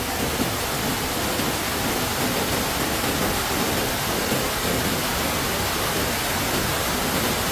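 Chunchi Falls on the Arkavathy river: falling water giving a steady, even rush of noise.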